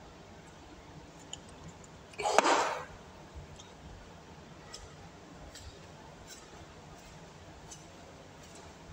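One short, loud burst of sound a little over two seconds in, then a few faint taps of footsteps on the wooden gym floor as a man walks across.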